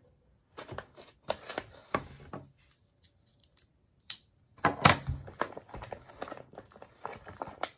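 A Spyderco folding knife cutting through the top of a heavy plastic ration pouch in a quick series of short strokes. About four seconds in comes a single sharp click, then the pouch crinkles loudly as it is handled.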